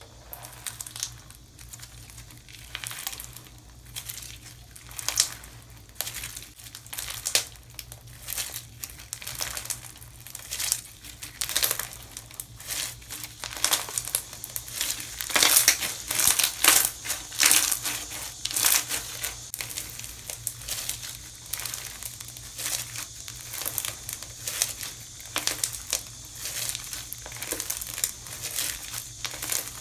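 Slime being squeezed and pressed by hand, making dense, irregular crackling clicks that are loudest about halfway through.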